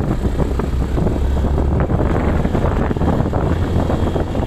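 A vehicle driving along a rough, broken hill track: a steady low engine-and-road rumble with wind buffeting the microphone.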